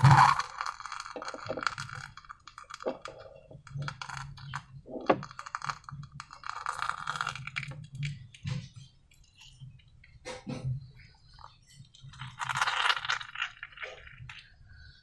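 Slime being squeezed and worked by hand, giving irregular sticky crackles, clicks and small squelches, with a loud crackling burst right at the start.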